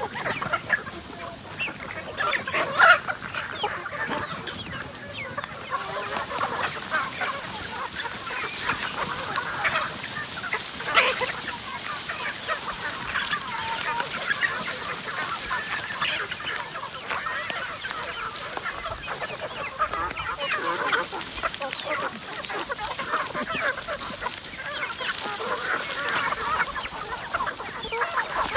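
A large flock of free-range chickens clucking and calling together in a dense, continuous chatter of overlapping short calls. A few louder calls stand out, about three seconds in and again about eleven seconds in.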